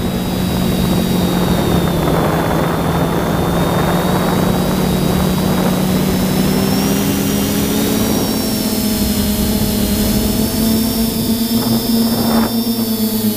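Multirotor drone's motors and propellers humming steadily with a high whine above it, and wind rushing on the microphone. Around halfway through the hum splits and part of it rises slightly in pitch as the motors change speed, while the wind noise eases.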